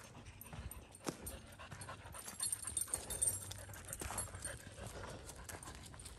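A dog panting, with irregular footsteps along a trail.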